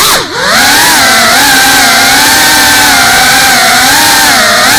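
GEPRC CineLog35 cinewhoop's brushless motors and ducted propellers whining loudly in flight. There is a brief dip in pitch and loudness just after the start, then a steady, slightly wavering pitch.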